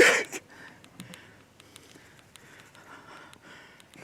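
A man's sharp breath out at the very start, then faint breathing and low rustling with a few small clicks.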